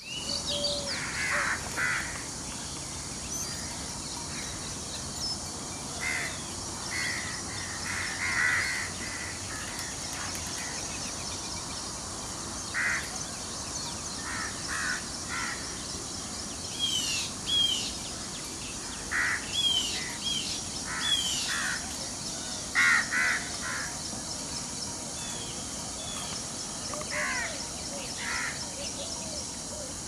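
Wild birds calling: short calls in quick pairs and triplets every second or two, with higher chirps and whistles among them, over a steady high-pitched background.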